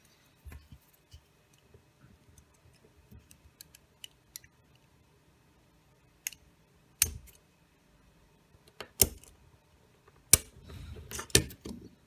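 Utility knife cutting and scraping the silicone waterproof coating off the end of an LED strip to bare the copper pads: faint scratches and ticks, then a few sharp clicks and taps in the last five seconds.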